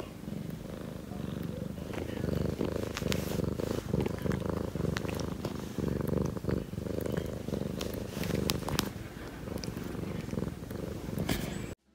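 Maine Coon cat purring right against the microphone: a steady, pulsing rumble with scattered small clicks. It cuts off suddenly near the end.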